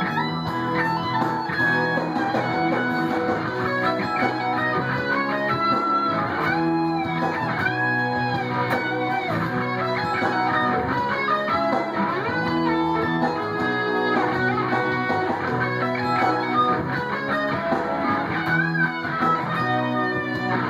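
Electric guitar with distortion straight from an Ibanez amp, playing a busy lead line of many quick notes with a few bent, gliding notes.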